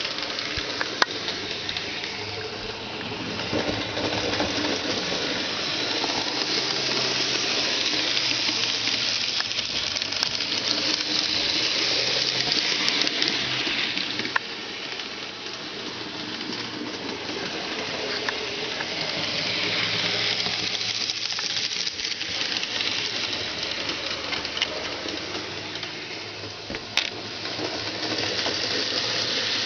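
N-gauge model train running on the layout's track: a steady whirring hiss with a low hum that grows louder and softer several times, with a few sharp clicks.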